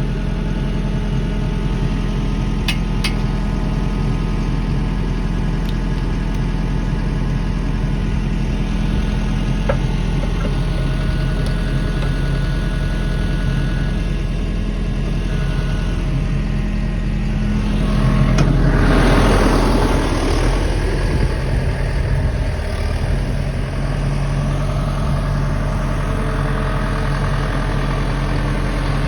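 1968 K20 pickup truck's engine running steadily at low revs, with a louder surge about two-thirds of the way through.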